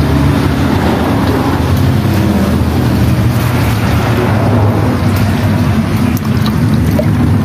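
A motor running steadily with a low hum.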